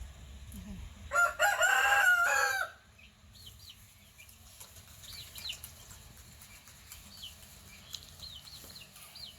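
A rooster crows once, a loud call of about a second and a half starting about a second in. Faint high chirps repeat throughout.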